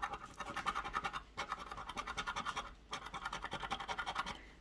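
Rapid back-and-forth scratching on a scratch-off lottery ticket, rubbing off the coating in three quick runs with brief pauses between.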